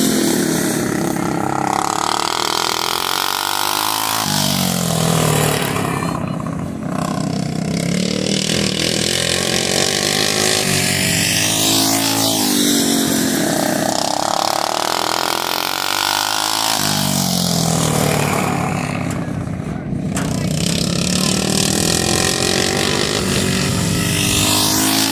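Racing lawnmower engines running hard as the mow karts lap the track, the pitch rising and falling again and again as karts come past.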